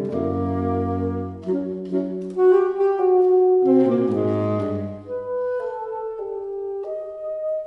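Alto, tenor and baritone saxophone trio playing classical chamber music in sustained, overlapping lines. The baritone's low notes drop out about five seconds in, leaving the upper saxophones, and near the end a single note is held.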